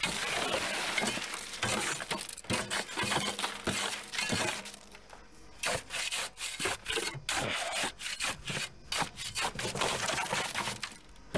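Concrete mix going into a fence-post hole: a steady gritty hiss for the first two seconds or so, then a run of short, uneven scraping strokes as it is worked in.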